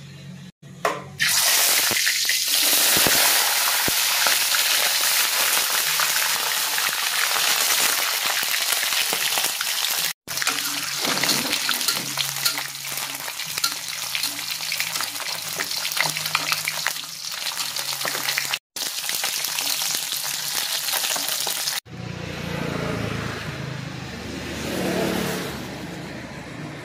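Small whole fish frying in hot oil in a wok: loud, dense sizzling and crackling that starts about a second in. It cuts off sharply twice along the way and stops near the end, giving way to a quieter sound.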